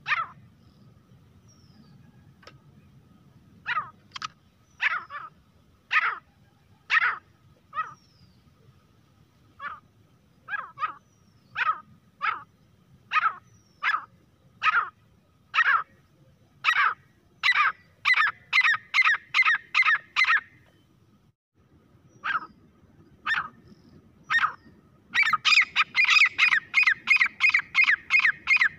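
Grey francolin calling: short, sharp, pitched notes, spaced out at first and then coming faster in pairs and runs. After a brief pause about two-thirds of the way in, the calls break into a loud, rapid series near the end.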